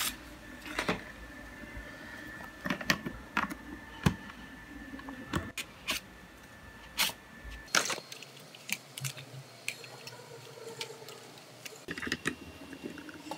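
Scattered light plastic clicks and rattles of a DJI Mavic 2 Pro drone being handled, its folding propellers and arms unfolded by hand.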